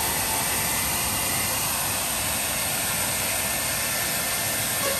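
Blow dryer running steadily while the dog's wet coat is dried and combed, a constant even rushing noise.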